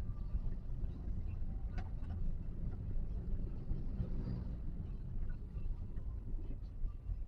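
Toyota Calya's cabin noise on the move: a steady low rumble of engine and road, with a couple of faint clicks about two seconds in.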